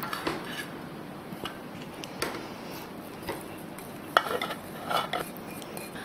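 Silicone spatula scraping and tapping against a glass mixing bowl and a metal loaf tin as a thick, doughy sweet mixture is scooped out. It makes a series of light scrapes and knocks, the sharpest about four and five seconds in.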